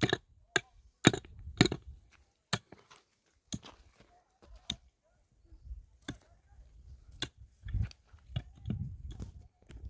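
A hand tool striking hard ground or stone in irregular, sharp blows, about a dozen over the stretch, the loudest in the first couple of seconds.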